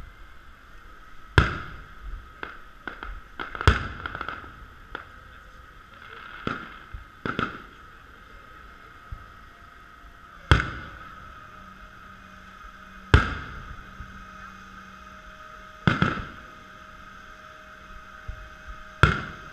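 Aerial firework shells bursting: six loud bangs, each with a short echoing tail, and a run of smaller pops between about two and eight seconds in. A steady high-pitched hum sits underneath.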